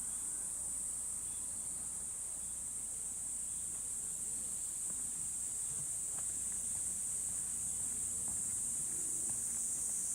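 A steady, high-pitched chorus of summer insects buzzing without a break, dipping slightly in pitch near the end.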